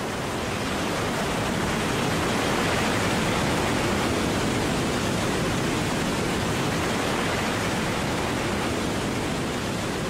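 Rushing water of a swollen, muddy river in flood pouring over rapids and low falls: a steady, even rush that grows a little louder over the first two seconds.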